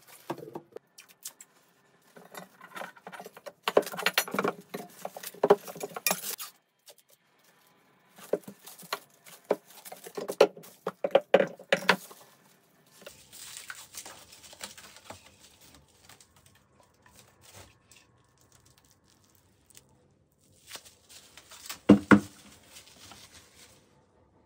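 Clear plastic stretch film crackling and rustling as it is pulled off a mini hand-held roll and wrapped around small objects, in irregular bursts, with one sharp knock about 22 seconds in as something is set down.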